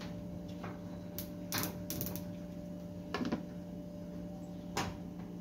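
A stove being switched on under a frying pan: a few sharp clicks, three in quick succession and then two single ones, over a steady low hum.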